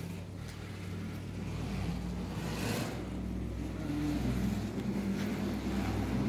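Porsche Taycan electric car moving off at low speed, giving a steady low electronic hum of a few layered tones (its low-speed pedestrian warning sound) that grows slowly louder.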